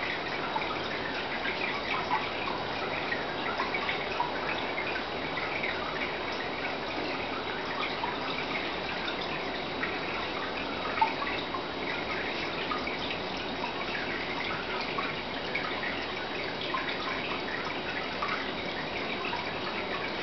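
Aquarium water trickling and dripping steadily, with many small plinks and one sharper plink about halfway through, over a faint steady hum.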